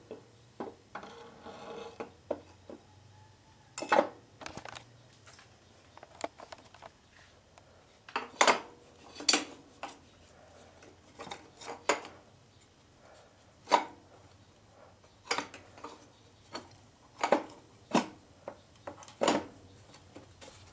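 Aluminum sump cover clinking and knocking against a Tecumseh 6 hp OHV engine's crankcase as it is worked over the crankshaft and lined up: a series of irregular, sharp metal clinks.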